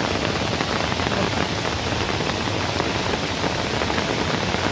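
Heavy downpour: rain falling hard and steadily, an even, dense hiss with no let-up.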